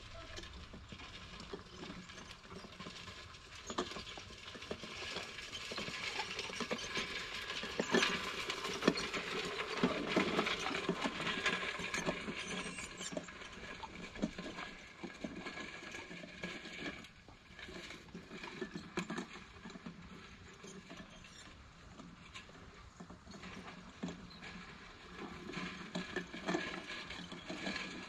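Landzie peat moss spreader, a push-along mesh drum, rolling over bare soil with a dense run of clicks and rattles as the drum turns and sifts out peat moss. Loudest from about four to fourteen seconds in, quieter in the middle, and louder again near the end.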